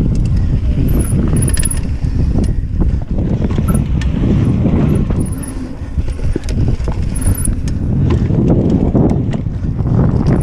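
Mountain bike riding fast down a dirt trail: a steady rumble of the tyres rolling over dirt, with the bike's chain and parts rattling and clicking throughout.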